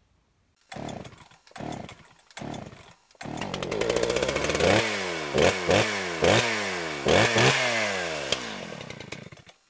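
Chainsaw engine sputtering in three short bursts, then catching and running about three seconds in. It is revved in several sharp blips, each falling back in pitch, and dies away near the end.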